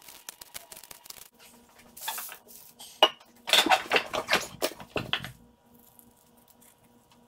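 Steel scissors and a heap of dry wood curls handled on a wooden workbench: light clicks at first, a sharp clack about three seconds in, then about two seconds of crisp clattering and rustling before it goes quiet.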